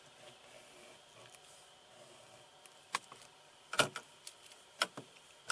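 Quiet room tone broken by a handful of short, sharp clicks in the second half, the loudest nearly four seconds in.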